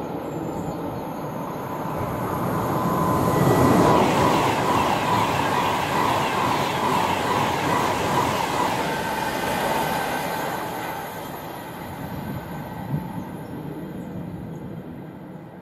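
Express passenger train passing close at speed. The noise of its wheels on the rails builds over the first few seconds, stays loud with a steady high whine, then fades as it draws away, while a receding freight train rumbles at the start.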